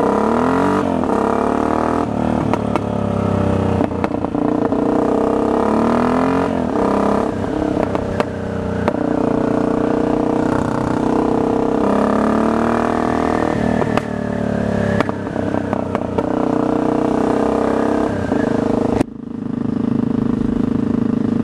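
Yamaha XT660X single-cylinder engine exhaust through Scorpion mufflers gutted of their fiberglass packing, loud, as the bike accelerates and shifts up: the pitch rises and drops back several times, then holds steady near the end.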